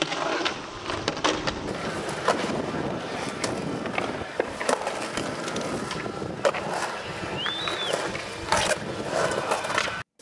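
Skateboard wheels rolling on concrete, with sharp clacks of the board and trucks hitting the surface every second or two.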